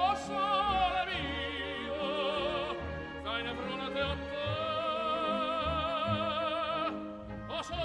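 Operatic singing over accompaniment: a voice holding long notes with a wide vibrato, in several phrases that break about a second in, around three seconds in and near the end.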